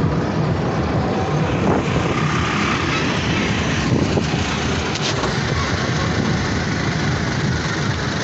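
Roadside traffic noise, with a motorcycle passing close by about four seconds in over a steady background roar.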